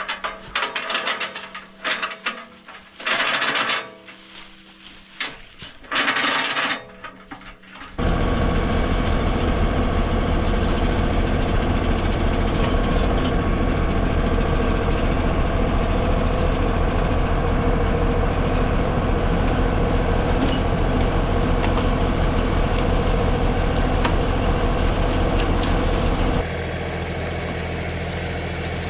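Scattered knocks and clatter for several seconds, then an LS XG3140 tractor's diesel engine comes in suddenly about eight seconds in and runs steadily and loudly. Near the end it drops to a quieter, steady note.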